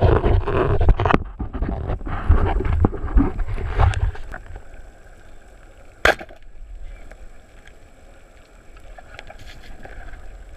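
Underwater rushing and bubbling water noise from a spearfisherman's dive for the first four seconds, then a quieter steady water hiss. About six seconds in comes a single sharp crack: the speargun firing.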